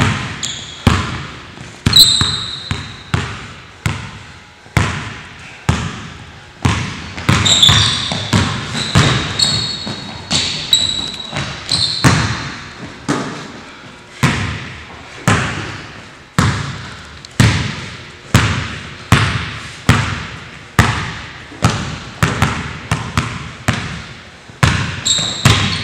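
Basketball dribbled on a hardwood gym floor, bouncing about once a second, each bounce ringing out in the hall. Sneakers squeak briefly on the floor now and then.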